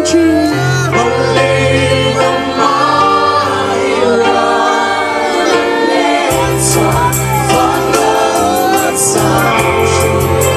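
Crowd singing a Christian worship song with a live band of keyboard and bass through a PA; the bass drops out about four seconds in and comes back with cymbal strokes about two seconds later.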